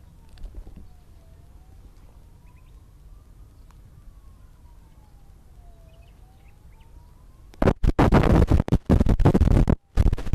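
A siren wailing slowly up and down, faint under a low rumble, with a few small chirps. About three-quarters of the way through, loud choppy bursts of harsh noise start and drown everything out.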